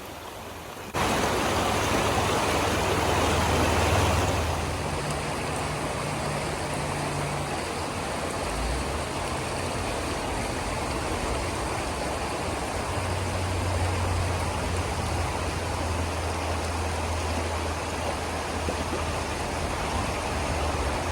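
Flowing water rushing steadily, cutting in abruptly about a second in, with a low hum underneath.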